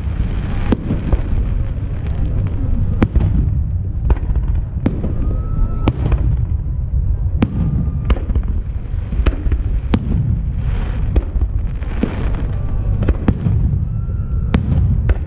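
Fireworks show: aerial shells bursting in a quick run of sharp reports over a steady low rumble.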